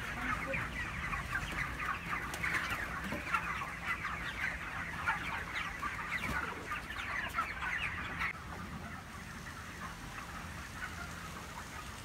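A large flock of 32-day-old broiler chickens: a dense chorus of cheeping and clucking from many birds at once, which grows softer about eight seconds in.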